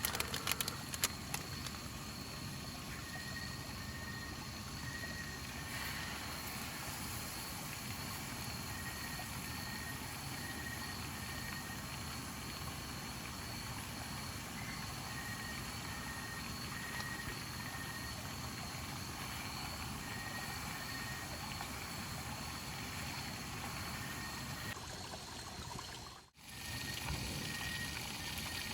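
Steady rushing of running water, with a continuous high trill and a repeated short pulsing tone over it, like night insects calling. The sound cuts out for a moment near the end.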